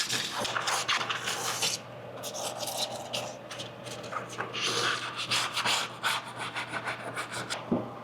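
Folded 40-grit sandpaper rubbed by hand over a Jeep tub floor in quick back-and-forth strokes, scuffing the surface so primer and bedliner will adhere. The strokes are fast and loud for the first couple of seconds, softer for a while, then pick up again about halfway.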